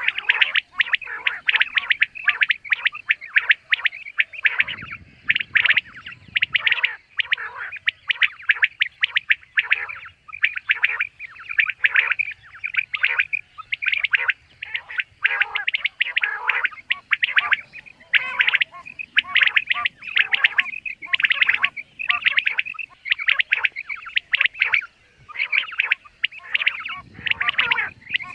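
Common quail calling over and over, its short, sharp notes coming in quick clusters without a break.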